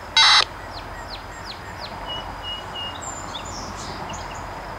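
Birds chirping, a run of short falling chirps and a few higher whistled notes, over a steady high-pitched insect drone. A brief loud burst of sound comes right at the start.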